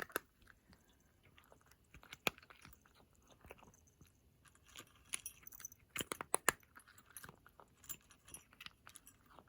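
Cat eating its food, chewing with irregular sharp clicks.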